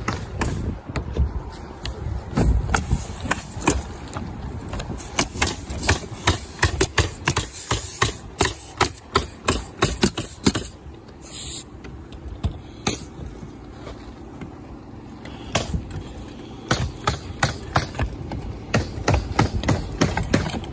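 Roofing work: many sharp clacks in quick, uneven runs from a hose-fed pneumatic roofing nailer driving nails into the roof deck, with a short hiss about eleven seconds in.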